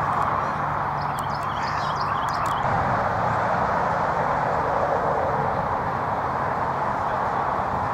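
Steady rushing outdoor background noise, with a few faint short high calls between one and three seconds in.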